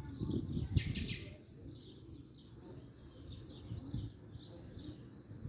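Small birds chirping and twittering throughout in a garden chorus, with a brief sharper sound just after a second in and some low thumps in the first second and a half.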